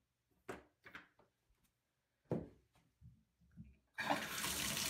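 A few short knocks and clicks of handling, then about four seconds in a single-handle bathtub shower valve is turned on and water starts running in a steady rush.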